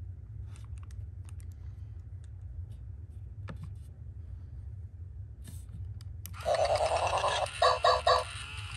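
Plastic clicks and taps as a white 2007 Hasbro I-Dog robot toy dog is handled and set down, then its speaker plays its power-on sound: a loud electronic tone about a second long, followed by three short quick notes.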